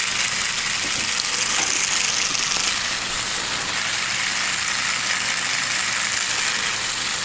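Small electric motor of a K'nex rotator running steadily through a plastic gear-reduction train of six or seven gear pairs, which takes it down from about 1800 rpm to 3 rpm. It makes a continuous, even, high whir.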